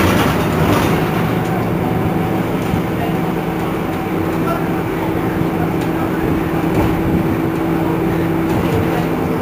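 Iveco Crealis city bus running: a steady engine drone under road and body noise, with a steady whine that holds from about three seconds in until shortly before the end.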